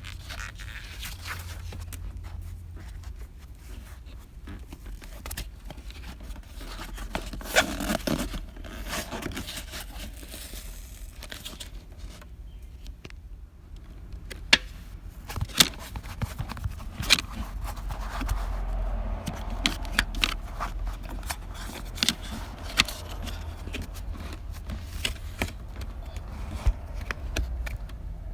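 Car interior trim being handled and pried at: scattered sharp clicks and knocks with spells of scraping, over a steady low hum.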